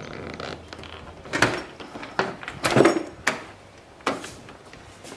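Plastic rear door trim panel of a Toyota Landcruiser 200 Series knocking and scraping against the door as it is lifted off, with a handful of sharp clacks, the loudest about halfway through.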